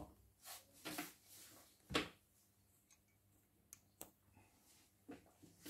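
Scattered faint clicks and light knocks of cameras being handled on a tabletop, the loudest about two seconds in and two sharp ticks around four seconds in.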